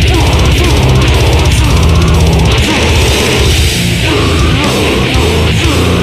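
Extreme heavy metal music, loud and dense, with distorted guitars and drums.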